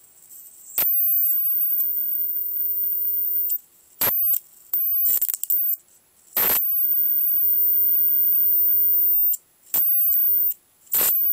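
High-voltage arc from a small CRT TV's flyback transformer to a screwdriver tip: a very high-pitched whine with hiss that keeps striking and breaking off, about five times, with a sharp snap each time the arc strikes.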